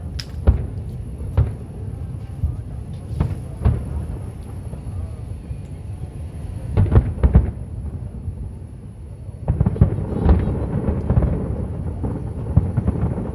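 Aerial firework shells bursting, a string of sharp bangs and deep booms. A quick cluster of bangs comes about seven seconds in, and from near the ten-second mark the booms come thick and almost continuous as the barrage builds.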